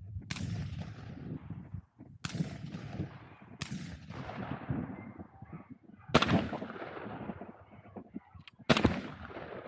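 Shotgun shots fired at a running rabbit: five sharp reports in about eight seconds, each trailing off, the last two the loudest.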